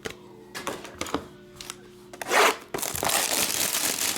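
Faint background music, which the host hears as somebody rapping, under a few light clicks. A little past halfway comes a short burst of noise, then a steady, louder rustling.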